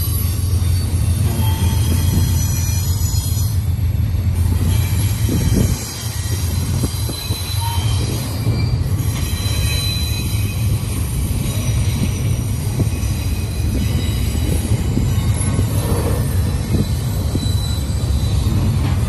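CSX double-stack intermodal well cars rolling past: a loud, steady low rumble of wheels on rail, dipping briefly about six seconds in, with high-pitched steel-wheel squeal coming and going.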